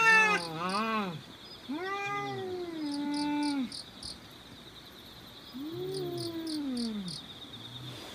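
Two cats, an orange cat and a grey tabby, yowling at each other in a face-off: long, drawn-out wavering howls that rise and then sag in pitch, three of them with pauses between. These are the threat calls of cats squaring up to fight.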